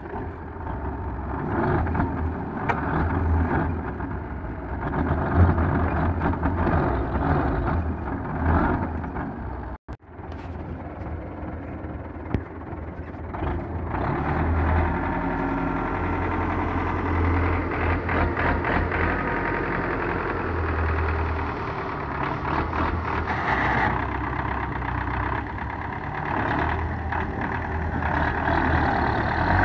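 Belarus MTZ-510 tractor's diesel engine running hard under load while the tractor is stuck, straining to pull a mud-loaded trolley out. The engine note swells and eases repeatedly, with a brief dropout about ten seconds in.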